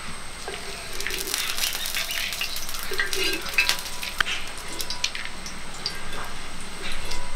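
Wooden spatula scraping fried groundnuts across a metal pan, the nuts clicking and rattling against the metal as they are pushed out into a clay pot, over a light sizzle of hot ghee.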